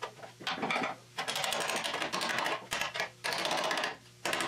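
A handheld power tool worked against a steel frame section held in a vise, giving bursts of rapid metallic clattering: a few short knocks first, then three goes, the longest about a second and a half.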